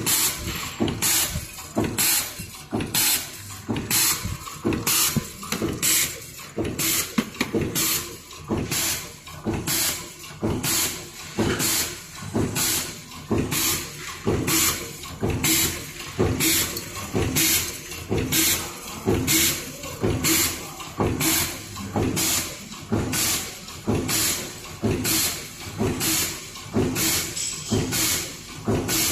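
Full-automatic metal zipper teeth gapping machine cycling steadily. Each cycle, about one and a half a second, brings a short hiss over a lower mechanical clatter.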